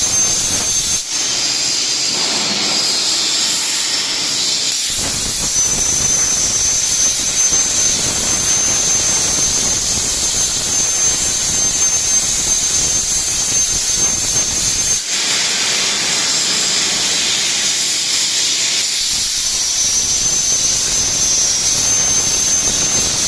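CNC plasma torch cutting a steel profile: a loud, steady hiss with a thin high whistle over it. The low rumble under the hiss drops out twice for a few seconds, about a second in and again about fifteen seconds in.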